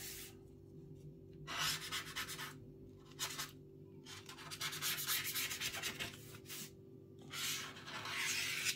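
Scraping and rubbing on an iPad's frame as the broken digitizer glass and its bonding adhesive are worked off, in several bursts of a second or two with short pauses between. A steady low hum sits underneath.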